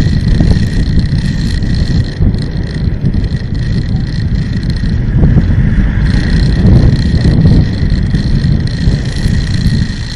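Vehicle driving through city traffic, heard from on board: a continuous low engine and road rumble with wind buffeting the microphone.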